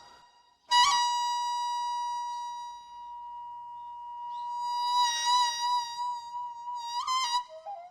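A solo melody instrument of Korean traditional music holds one long high note. It enters about a second in, swells again with a wavering vibrato past the middle, and bends upward briefly near the end.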